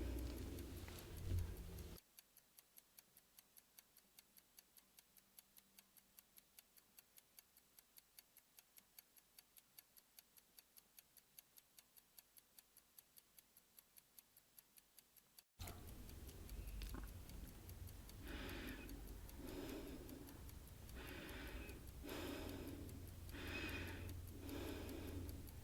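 A clock ticking fast and evenly, about four ticks a second, over near silence. About fifteen seconds in, a low hum and a run of soft breaths, about one a second, take over.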